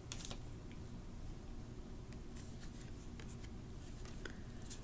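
Faint rustling and light scratchy slides of tarot cards being handled, a few brief scrapes of card stock at a time.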